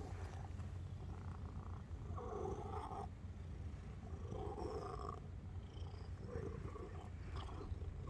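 Domestic cat purring: a steady low rumble that swells louder and higher-sounding for just under a second, about every two seconds.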